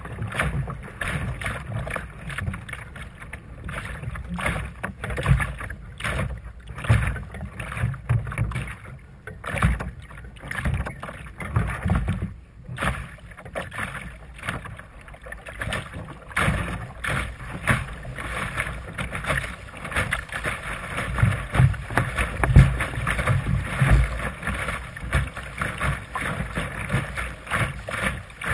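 Water splashing and slapping against the fiberglass hull of a Sunfish sailing dinghy under way through choppy water, in quick uneven slaps over a continuous wash, with a gusty low rumble underneath.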